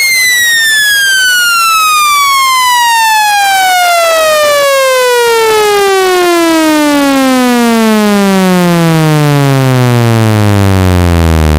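Speaker-cleaning test tone: a loud, buzzy electronic tone gliding steadily down in pitch from a high whine to a low hum. It is played to shake water and dust out of a phone speaker.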